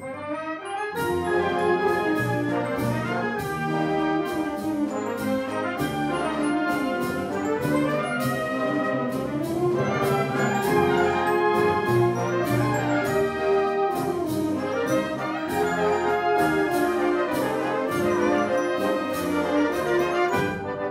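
Symphonic wind band playing a pasodoble: brass and clarinets carry the tune over a steady march beat from the percussion. The full band comes in about a second in.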